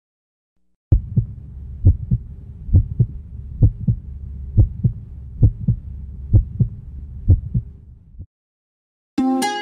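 Heartbeat sound effect: paired low thumps, a strong beat followed closely by a weaker one, a little under one pair per second over a faint low drone, stopping about eight seconds in. A ukulele tune starts just before the end.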